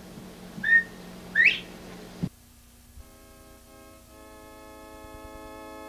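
Two short whistles, the second a quick upward sweep, then a cut to a held electronic organ chord that grows slowly louder from about three seconds in.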